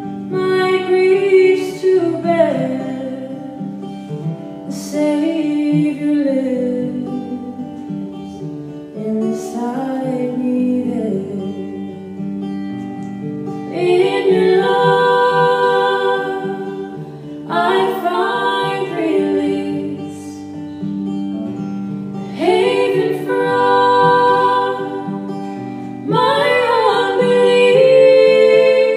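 Female vocals singing a song over acoustic guitar, in phrases a few seconds long that grow louder about halfway through.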